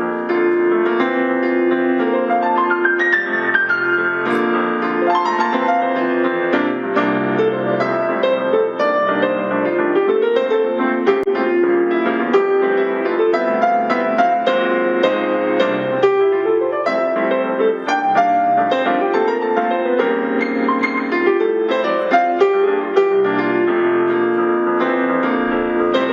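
Yamaha NP12 digital piano playing its built-in demo song on the sampled grand piano voice: a continuous piano piece through the keyboard's own speakers.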